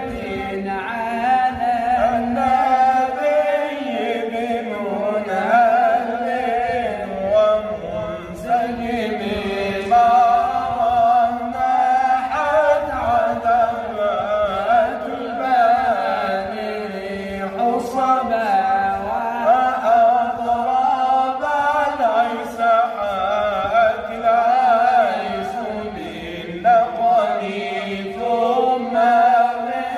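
Male voice chanting Islamic devotional poetry in long, ornamented melodic lines with short breaths between phrases.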